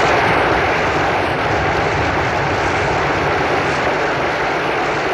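A loud, steady roar with a low rumble underneath, sounding like engines droning. It keeps going without a break.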